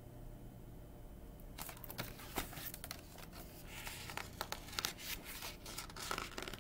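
Paper pages of a picture book being turned and handled close to the microphone: irregular rustling and crinkling with sharp little knocks, starting about a second and a half in after faint room hum.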